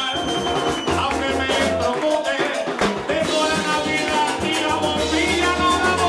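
Live Puerto Rican plena music: a man sings into a microphone over hand drums and shaken percussion playing a steady beat.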